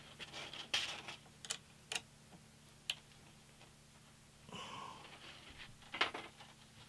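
Handling noise as a paper-backed sanding strip is fitted under the clamp on a drum sander's drum: paper rustling and about five sharp clicks, with a short rustle a little after the middle.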